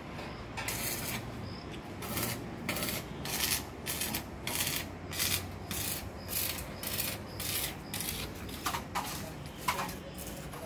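Footsteps on sandy, debris-strewn ground, a steady walking rhythm of short gritty scrapes at about two a second.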